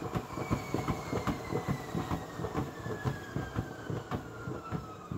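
Spin-art turntable whirling a poured canvas on a plastic tray. It makes a fast, rough rattle of clicks, with a thin whine that falls steadily in pitch as the spin slows.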